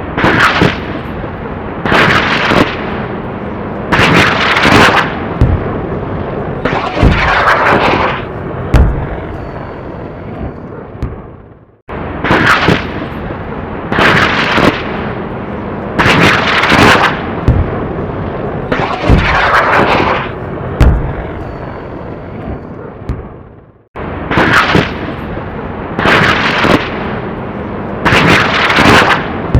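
Airplane rocket fire at close range: a rapid series of loud rocket launches, each a sudden rushing blast with a sharp low bang, over a continuous rumble that fades away after about five launches. The same twelve-second run of launches plays three times over.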